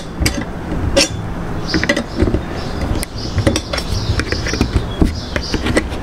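A steel combination wrench clicking and knocking against the nuts and bolts of a metal pole clamp as they are tightened, in short irregular clicks, over a steady low rumble.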